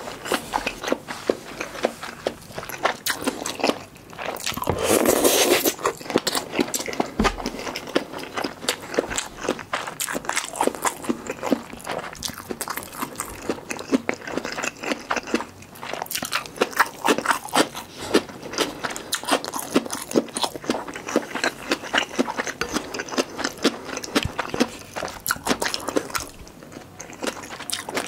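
Close-miked eating sounds: continuous chewing of mala tang and crispy fried guobaorou, a dense run of wet mouth clicks and crunches, with a louder stretch about five seconds in.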